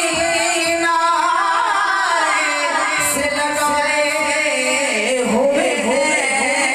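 A man singing a naat, an Urdu devotional poem, without instruments, drawing out long wavering held notes.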